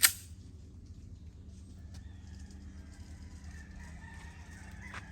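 A single sharp gunshot at the very start, then a long, steady-pitched bird call over a steady low hum.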